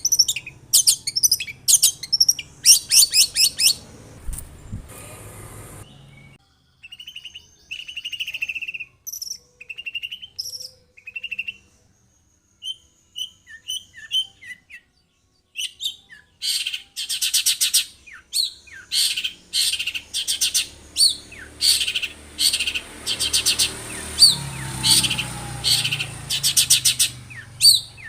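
Long-tailed shrike (cendet) singing: runs of fast, harsh chattering notes, then, from about a quarter of the way in, a stretch of softer, separate whistled notes with short silent gaps, before dense fast notes take up again from a little past halfway.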